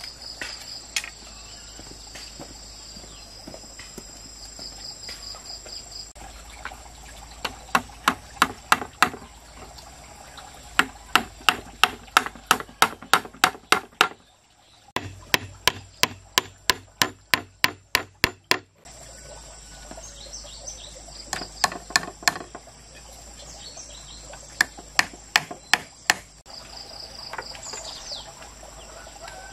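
Runs of sharp knocks, about three a second, from a hand tool striking bamboo, over a steady chirring of insects.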